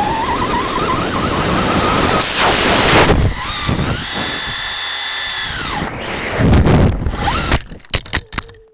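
A 1:10 scale HobbyKing Desert Fox RC car's electric drive motor whines up in pitch as the car speeds over asphalt. About two seconds in, the rocket strapped to it fires with a loud hiss lasting under a second. The motor whine then holds steady while the car is airborne, and about six and a half seconds in comes a loud crash with clattering knocks as the car lands hard.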